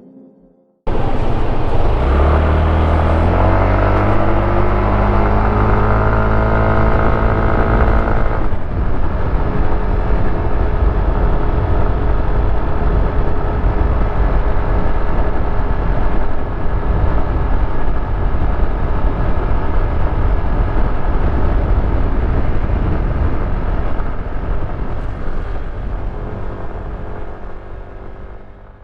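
Yamaha X Force 155 scooter's single-cylinder engine under way. It cuts in suddenly about a second in and its note rises for several seconds, then holds steady and fades away near the end.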